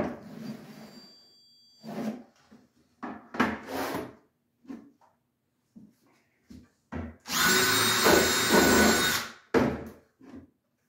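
Cordless drill driving a screw through the closet unit's nailer into a wall stud, running for about two seconds near the end. A few short knocks and handling sounds come before it.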